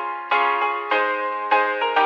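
Background music: keyboard chords, with a new chord struck roughly every half second and ringing on between strikes.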